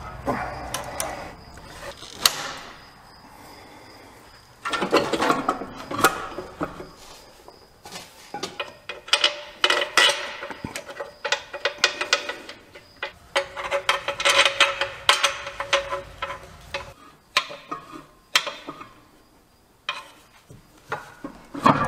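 Hand ratchet clicking in several bursts, with clinks of metal tools, as bolts are run in on a transmission being fitted.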